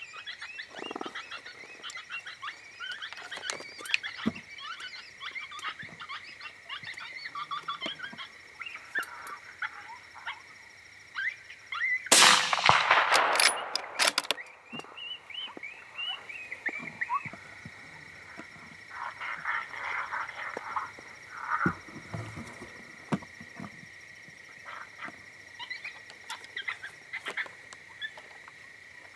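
Electronic predator call playing a rabbit distress sound: repeated short squealing cries over a steady high tone, with a loud harsh burst lasting about two seconds about twelve seconds in.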